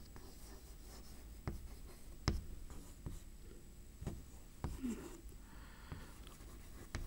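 Chalk writing on a chalkboard: several sharp taps of the chalk striking the board, spaced irregularly, with faint scratching of chalk between them.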